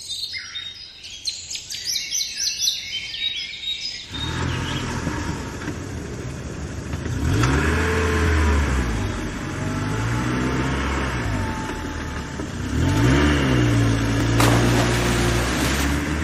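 Birds chirping for about four seconds, then a vehicle engine starts up and runs, revving up and down several times.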